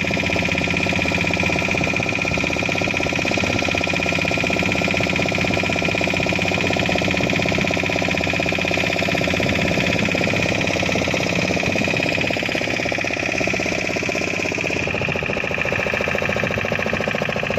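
River boat's engine running steadily with a fast, even chugging, and a steady high whine over it.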